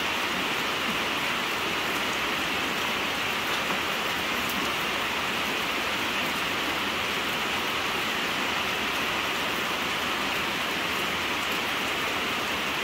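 Steady rain falling: an even, unbroken hiss with faint scattered drop ticks.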